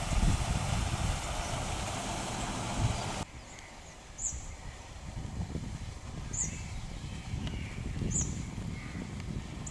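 Loud, even noise with a low rumble that cuts off abruptly about three seconds in. A wild bird then repeats a short, very high note about every two seconds over a low rumble.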